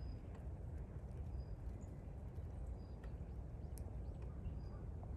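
Outdoor ambience: a steady low rumble, with faint short high-pitched chirps about every second and a half and a few light clicks.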